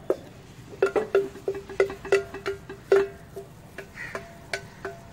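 Serving utensil knocking and scraping inside an enamel cooking pot as cooked kang kung is served out into a bowl. A dozen or so irregular knocks, each leaving the pot ringing briefly at the same pitch.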